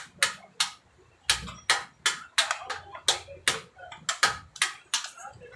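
A quick, uneven run of sharp clacks and knocks, about three a second, from Nerf foam-dart blasters in play.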